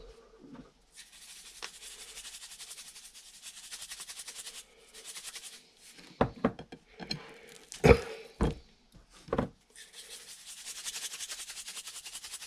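Pink salt being applied to pork ribs: a rhythmic, rasping hiss in two long stretches. In between come several sharp knocks and thuds, the loudest just past the middle.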